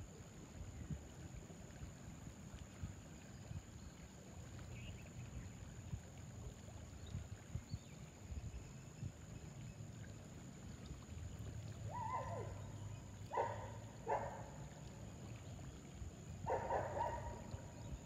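River ambience: a low rumble of flowing water and wind under a steady high-pitched tone. In the second half come a few short animal calls: one falling in pitch, two quick sharp ones, then a longer one near the end.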